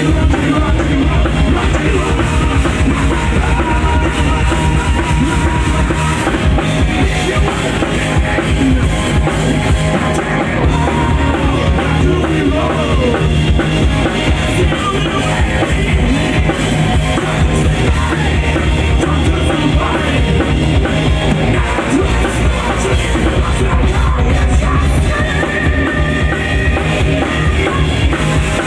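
Rock band playing live: electric guitars over a driving drum kit beat.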